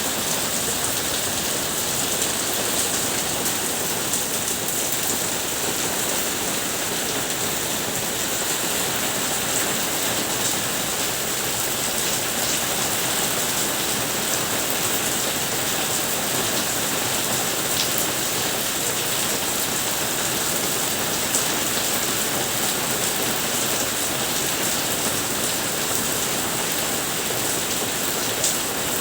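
Steady heavy monsoon rain falling and pattering on surfaces, an even rushing hiss with scattered individual drop ticks.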